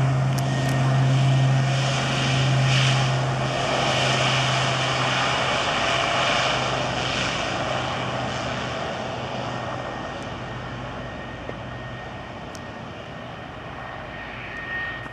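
Twin turboprop engines of a Dornier 228 running as the aircraft moves along the runway. A steady low propeller drone with a thin whine over engine rush, fading steadily as the plane draws away.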